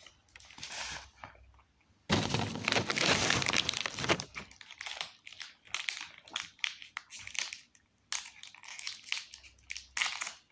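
Plastic snack wrapper crinkling as it is handled and pulled open, with a loud stretch of crinkling about two seconds in, then scattered short crackles.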